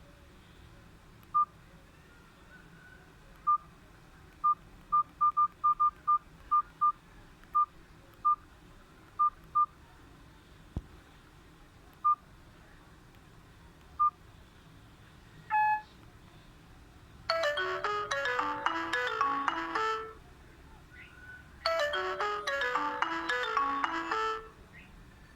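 Nokia 5310 phone giving a series of short, single-pitch key beeps at irregular spacing, as when stepping through its menu. Then a short ringtone melody plays twice, each time for about three seconds.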